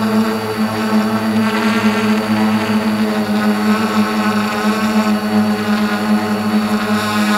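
Electric motors and propellers of a small remote-controlled aircraft, heard from the camera on board: a loud, steady buzzing hum with a constant pitch as it climbs under power.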